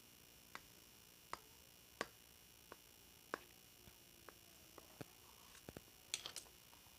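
Faint, irregular clicks and taps of a knife against the plate as a sponge cake is cut, about a dozen in all, with a quick run of several near the end.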